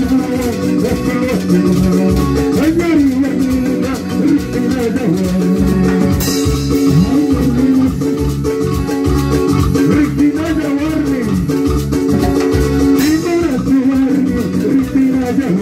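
Loud band music through a PA system: guitars and shakers over a steady dance beat. A short hiss cuts in twice, about six seconds in and again near thirteen seconds.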